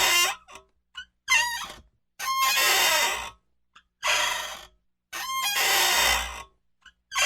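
Office swivel chair rocking back and forth, its mechanism squeaking on each rock: short pitched squeals alternate with longer, harsher creaks, about five in all with brief silences between them.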